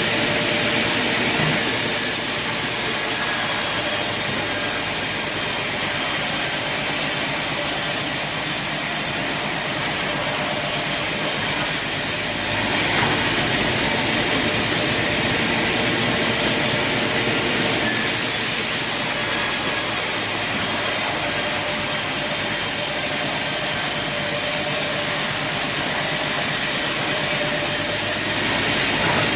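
Sawmill machinery running with a steady, hissing mechanical noise. Its character shifts abruptly several times.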